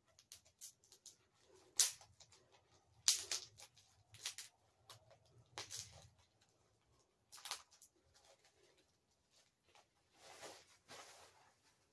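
Toy packaging being handled and pulled open by hand: scattered rustles and clicks with a few short, sharp noises, and a longer rustle near the end.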